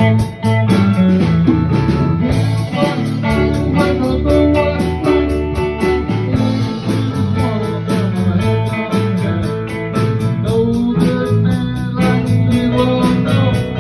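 Instrumental break in a blues-style song: guitar playing over a steady drum beat, with no sung words.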